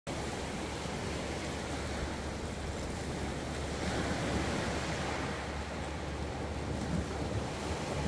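Small sea waves breaking and washing up a shingle beach in a steady wash of surf, one surge swelling about four seconds in.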